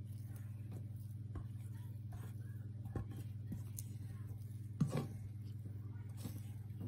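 Wet, sticky bread dough sliding out of a bowl as a silicone spatula scrapes it free, with faint squelches and a few soft taps, over a steady low hum.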